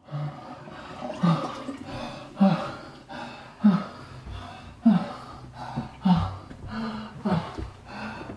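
A man's voiced, gasping breaths, one sharp heave about every second and a bit, each falling in pitch: a fit of distressed gasping or sobbing.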